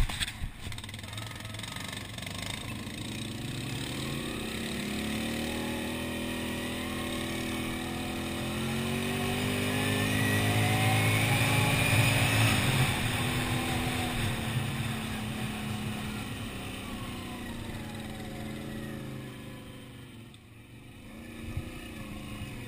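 Quad bike (ATV) engine running under the rider as it is ridden along a dirt track. Its pitch and loudness climb steadily as it speeds up, peak about halfway, then fall as it slows. A sharp knock sounds at the very start.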